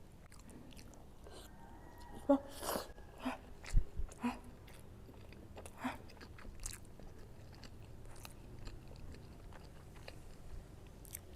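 A person chewing and biting food close to the microphone, here a mouthful of siomay (steamed fish dumplings). Sharp wet smacks and clicks cluster between about two and six seconds in, and softer chewing follows.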